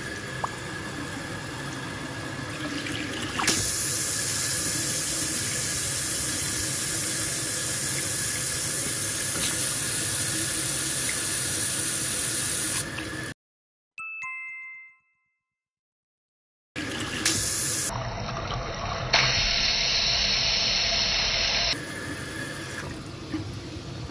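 Water running from a washbasin tap onto the metal drain plug, a steady splashing hiss that gets louder a few seconds in. Around the middle the sound cuts out for a few seconds, with a short chime, before the running water resumes.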